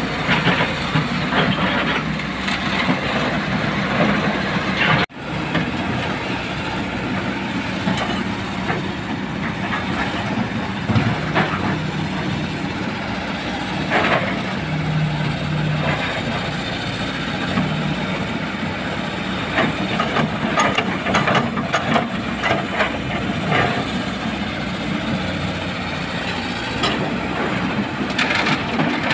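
Kobelco hydraulic excavator's diesel engine running under load as it digs and loads rock and mud, with repeated clattering of stones dropping into a steel dump-truck bed. The sound cuts out briefly about five seconds in.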